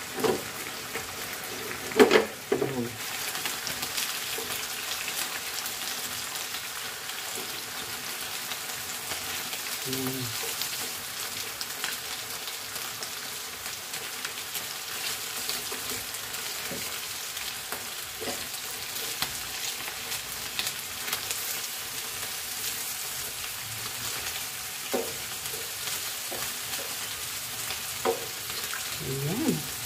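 Marinated chicken pieces sizzling steadily in a nonstick grill pan. A few knocks and clicks break in, the loudest about two seconds in, with tongs clicking against the pan as the pieces are turned near the end.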